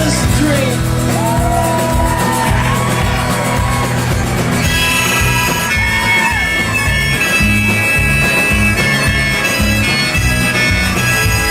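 Live band playing an instrumental break over a steady bass-and-drums beat, with a bending lead line at first and a blues harmonica solo coming in about four or five seconds in.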